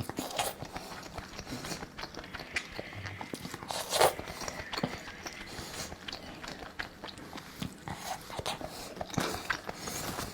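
Close-up eating sounds: a person chewing and biting food, with many short wet mouth clicks and a louder bite about four seconds in.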